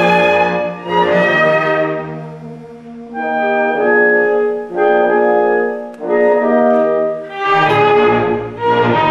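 Instrumental background music with held, swelling notes that change about once a second, in an orchestral style.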